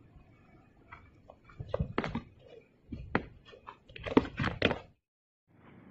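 Yak horns knocking together as two yaks butt heads: a run of irregular sharp knocks and scrapes that cuts off suddenly about five seconds in.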